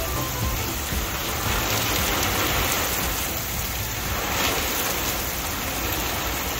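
Heavy rain pouring down onto concrete pavement, a dense, steady hiss.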